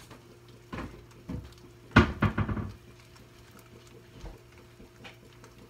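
Kitchen clatter: a few separate knocks of dishes or utensils, then a loud burst of clanking about two seconds in, with a steady low hum underneath.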